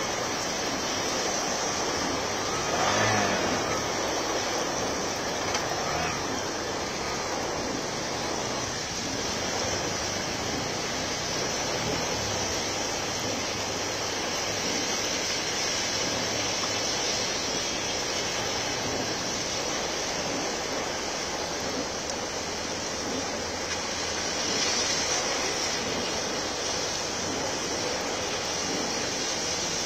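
Heavy rain falling in a steady downpour, an even hiss, with brief louder swells about three seconds in and again late on.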